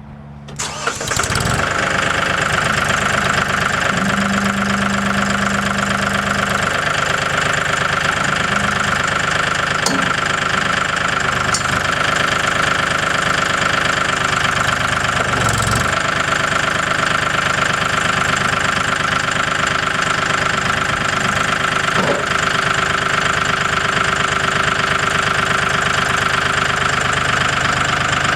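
Mahindra 4035 tractor's diesel engine running steadily, coming in loudly about a second in, while the loader hydraulics retract the lift cylinders and roll the bucket back to lift the loader off its mounting brackets.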